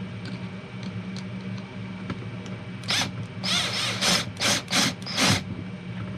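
About five short rasping scrapes in quick succession, between about three and five and a half seconds in, as the camper window's telescoping support arm is slid out, over a steady low hum.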